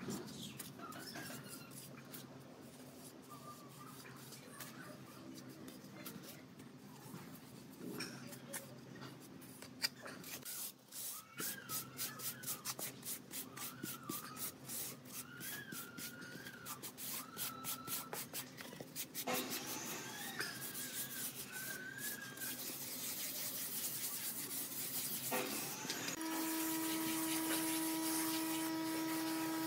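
Steel trowel and foam float scraping and rubbing wet cement render over a brick stove body, in quick repeated strokes. High wavering calls come and go in the background, and a steady hum sets in near the end.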